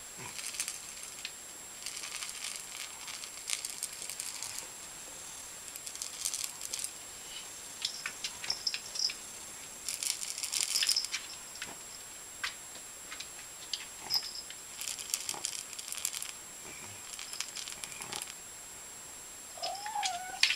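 Irregular bouts of light rattling and crinkling clicks, with a short cat meow near the end.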